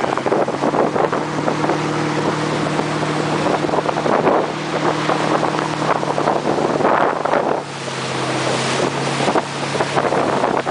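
Motorboat engine running steadily under way, with wind buffeting the microphone and water rushing past the hull. About three-quarters of the way through, the engine note drops slightly.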